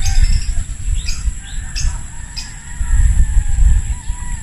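Wind buffeting the microphone in uneven gusts, strongest at the start and about three seconds in, with birds squawking and chirping over it and a steady high whine.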